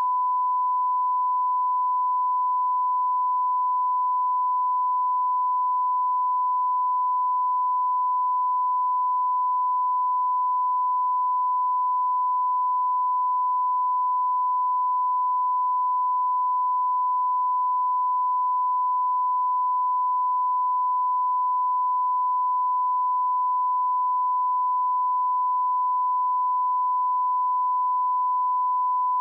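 Steady 1 kHz line-up test tone that accompanies colour bars: a single pure tone held unbroken at constant level, the reference tone used to set audio levels at the head of a broadcast tape.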